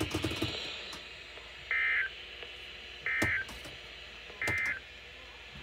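Three short two-tone data bursts, each about a third of a second and about 1.4 s apart, from a NOAA Weather Radio broadcast. This is the SAME digital end-of-message code that closes a flash flood warning.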